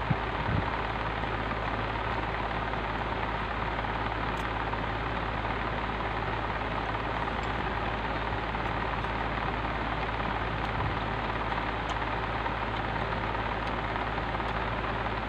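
A steady mechanical drone with a constant low hum, with a few faint crunches from chewing raw green mango.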